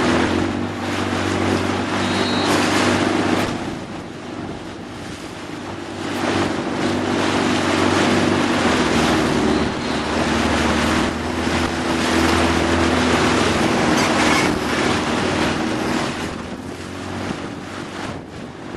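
Motorboat engine running steadily at low speed, with wind gusting on the microphone and water rushing past the hull; the engine fades in the last couple of seconds.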